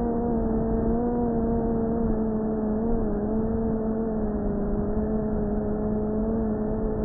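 3-inch cinewhoop FPV drone's motors and propellers whining steadily, the pitch wavering slightly with throttle and easing a little lower toward the end.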